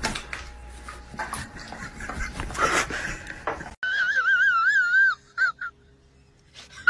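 For the first few seconds a dog makes rough, breathy noises; then, after a sudden change about four seconds in, a cat gives a high, warbling yowl lasting about a second, followed by a shorter one.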